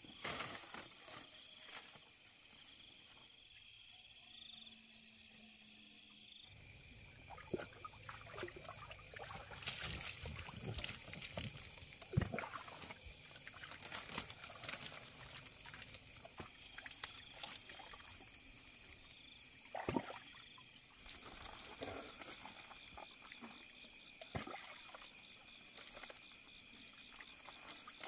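Water poured and splashing in irregular bursts as a person bathes standing in a plastic tub, starting about six seconds in, over a steady high-pitched drone.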